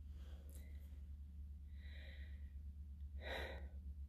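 A person's soft breaths, three of them, the last and loudest about three seconds in, over a steady low hum.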